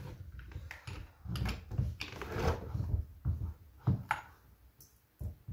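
Handling noise from an old STIHL chainsaw on a wooden deck as its chain is tightened with a hand tool: irregular knocks, rubs and scrapes of metal parts, with a couple of sharper clicks about four seconds in.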